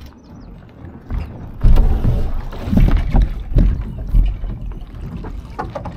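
Water washing and splashing against a Laser sailing dinghy's hull under sail, with a heavy low rumble, getting much louder about a second and a half in.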